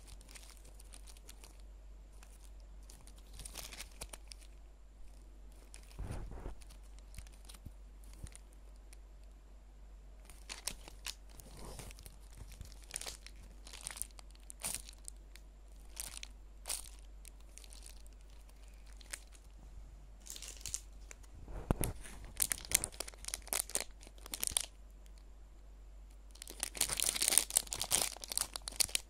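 Plastic packaging being handled and torn open: scattered crinkles and clicks, with denser bursts of crinkling about three-quarters of the way through and again near the end.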